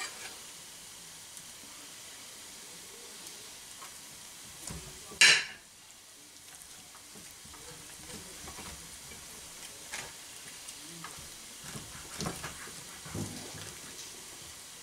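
Knife and fork carving a freshly roasted duck on a plate: soft cutting and crackling through the crisp skin, with light clicks of cutlery against the plate, over a faint steady hiss. About five seconds in there is one louder, brief rasp.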